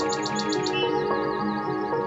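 Background music with steady sustained notes, and a quick run of about six short, high bird-like chirps in the first half-second.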